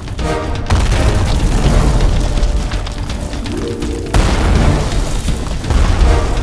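Booming cinematic explosion sound effects over dramatic music, with one blast hitting just under a second in and another about four seconds in, each trailing off into a deep rumble.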